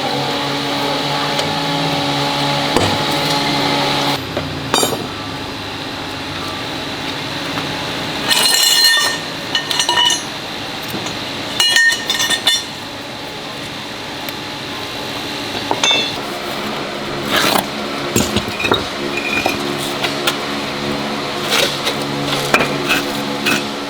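Metal parts and tools clinking and knocking together in short irregular bursts, as in gearbox repair work, over a steady mechanical hum that gets quieter about four seconds in.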